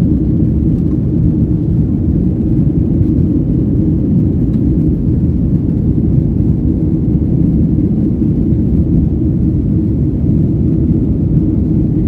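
Steady low rumble of a jet airliner's engines and airflow, heard inside the passenger cabin during the climb after takeoff.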